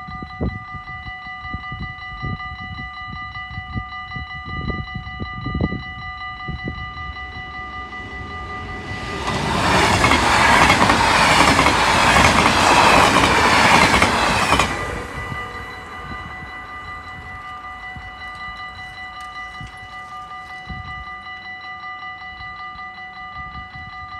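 A level crossing's electronic warning bell rings continuously at a steady high pitch. About nine seconds in, an NS double-deck electric train rushes past for about five seconds, loud enough to drown the bell, then the rush fades and the bell rings on.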